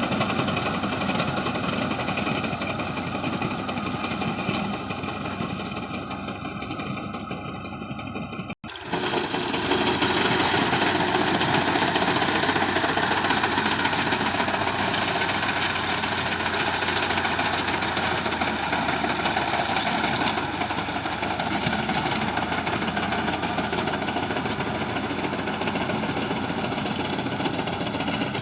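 Engine of a wheat reaper machine running steadily with a rapid knocking beat. The sound cuts out for a moment about eight seconds in, then comes back a little louder.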